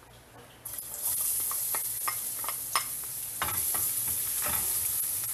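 Minced garlic hitting hot oil in a stainless steel frying pan, starting to sizzle loudly about a second in, while a utensil stirs it with repeated short scrapes against the pan. This is garlic being sautéed at the start of a dish.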